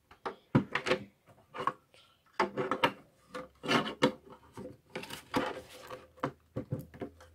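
Hard plastic pieces of a Shopkins Happy Places dollhouse clicking, knocking and scraping against each other as a teal plastic part is worked onto the yellow base without snapping into place. The sounds come as an irregular run of short clicks and a few longer scrapes.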